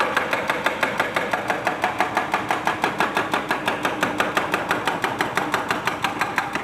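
Excavator-mounted hydraulic breaker hammering the monument's masonry in a steady, rapid train of about seven blows a second, then stopping abruptly.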